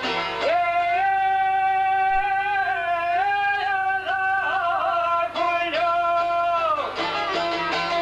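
Albanian folk song: a man sings one long held, wavering note line with small steps in pitch, falling away near the end, over plucked çifteli (long-necked two-string lute) playing, with quick plucked notes before and after the held line.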